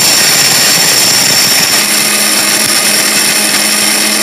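Orange-brand electric mixer grinder with a stainless-steel dry-spice jar running flat out, grinding whole dried turmeric into powder: a loud, steady motor noise with a high whine.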